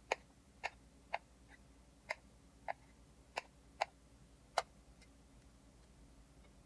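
Food containers being handled on a kitchen counter: about eight light, sharp clicks and taps, irregularly spaced, stopping about five seconds in.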